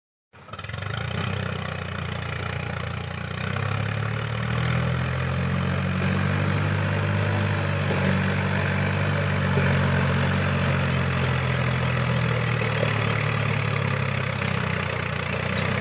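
Swaraj 855 tractor's three-cylinder diesel engine running steadily as it pulls two trailers loaded with sugarcane, growing a little louder as it approaches.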